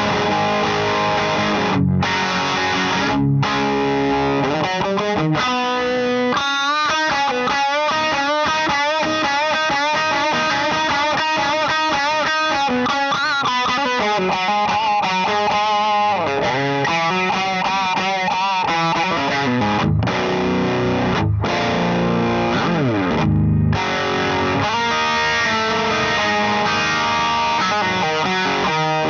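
Electric guitar played through an LPD Pedals Sixty8 Deluxe drive pedal pushing a Satellite Neutron tube amp: distorted lead playing with quick note runs and wavering, bent notes, stopping briefly a few times.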